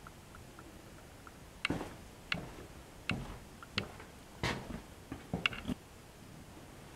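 Footsteps, about eight quick sharp steps that start about a second and a half in and stop near the end, in a small rock chamber.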